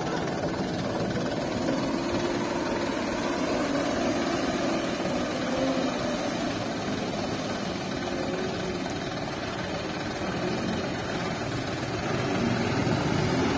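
Diesel engines of Mitsubishi Canter dump trucks running steadily at low revs, getting louder near the end as a second truck drives up.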